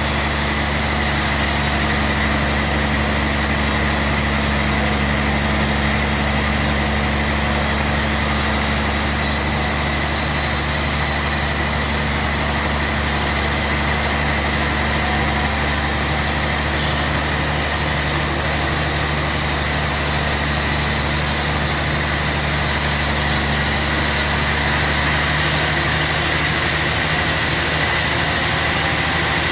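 Sawmill machinery running steadily: a constant engine drone with a high, even whine over it.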